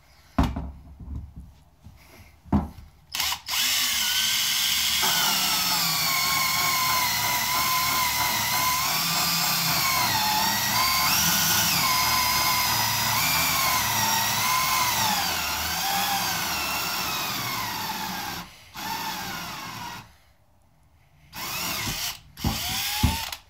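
Power drill driving a 3-inch hole saw through a plastic fuel cell. It starts with a few short bursts, then cuts steadily for about fifteen seconds with a whine that wavers up and down as the load changes. It stops briefly, then gives a few more short bursts near the end.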